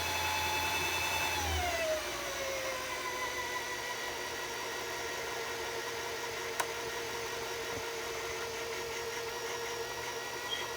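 Singer Heavy Duty sewing machine motor running at speed to wind a bobbin, a steady whine. About a second and a half in, its pitch drops and then holds steady, with a single click a little past halfway.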